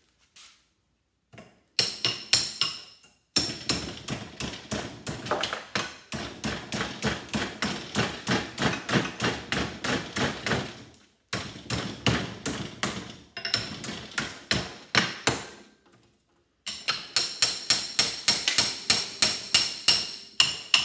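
Hammer blows on a transformer's steel core clamped in a bench vise, knocking the copper winding block out. Rapid metallic strikes about three a second come in several runs with short pauses, some with a metallic ring.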